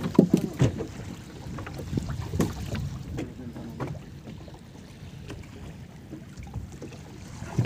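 Wind buffeting the microphone and water slapping against a small open boat, with a few sharp knocks on the hull. A short voice comes in near the start and again about three seconds in.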